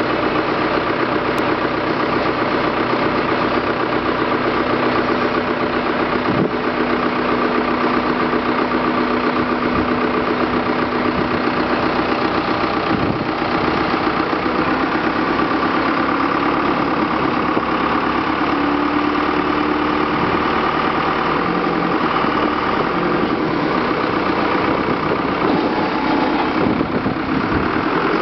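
Diesel engine of a Gradall 534D-9 telehandler running steadily close by, with a thin whine standing out over it in the middle of the stretch.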